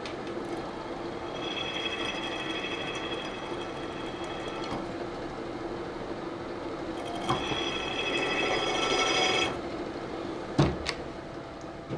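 Milling machine spindle running with a number 3 centre drill cutting a starting point into a broken stud. A high whine comes in over the motor twice, each time for a few seconds, and there is a sharp knock near the end.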